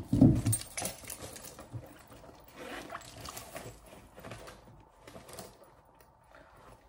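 A handbag being handled and packed by hand: a couple of loud thumps in the first half-second, then scattered rustling and small clicks that grow sparser toward the end.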